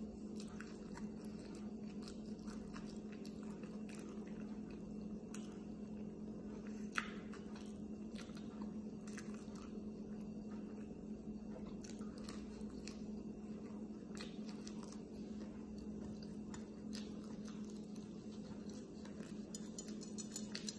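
Close-up chewing and biting of grilled flatbread, with many short wet mouth clicks and two sharper ones, about seven and seventeen seconds in, over a steady low hum.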